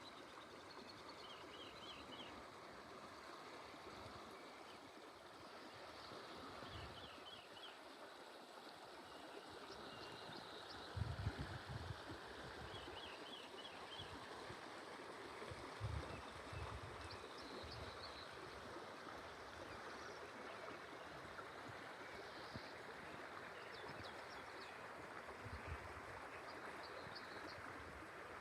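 A small stream running steadily, with short high bird trills every few seconds. Two brief low rumbles stand out about eleven and sixteen seconds in.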